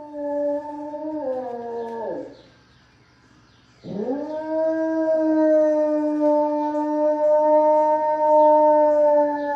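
A dog howling: one howl of about two seconds that slides down in pitch at its end, then after a short pause a second howl that swoops up and is held steady.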